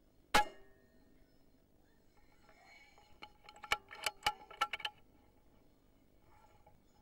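A single sharp rifle shot with a brief ring, about a third of a second in. Between about three and five seconds in comes a run of sharp clicks and knocks.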